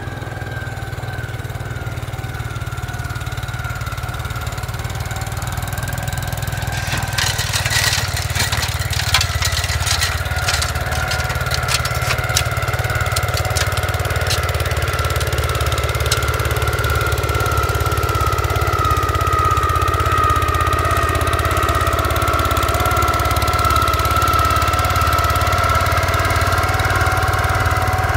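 Gravely tractor engine running steadily with its snow-blower attachment, with a steady high whine over the engine's drone. A scatter of sharp clicks and ticks starts about seven seconds in and dies away about halfway through, while the sound grows a little louder overall.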